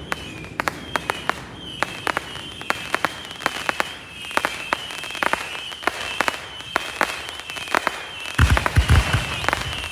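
Consumer fireworks going off: a rapid, irregular run of sharp crackling pops. About eight and a half seconds in, heavier deep booms join.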